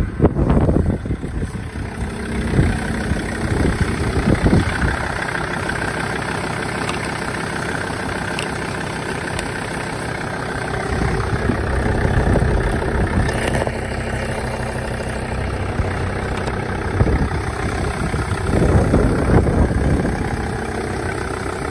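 Mercedes OM647 2.7 CDI inline-five diesel idling steadily, with louder, rougher swells in the first few seconds and again near the end.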